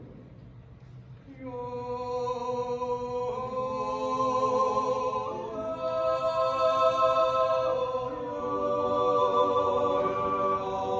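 Five-man yodel group singing an Appenzell Zäuerli, a slow wordless natural yodel without instruments. A new phrase begins about a second in after a short pause, with several voices holding long chords that shift every couple of seconds.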